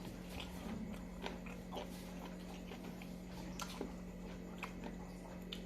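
Faint close-up eating sounds: a person biting and chewing pieces of chicken, with scattered small crunches and mouth clicks over a steady low hum.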